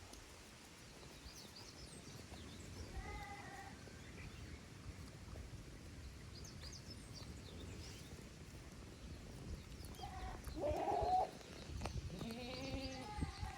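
Goats bleating: a faint call about three seconds in, then two louder bleats near the end. Small birds chirp now and then, and wind rumbles on the microphone.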